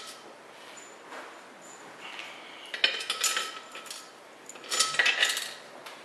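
Stainless steel bolts dropped into the bolt holes of an intake manifold, clinking metal on metal in two short bursts, about three seconds and five seconds in.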